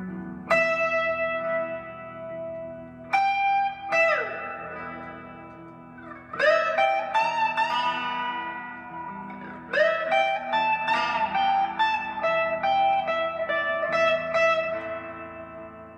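Slow blues lead in E minor on an Epiphone semi-hollow-body electric guitar, played through an amp: single notes picked hard and left to ring, several bent upward in pitch, over a softer looped backing of held chords.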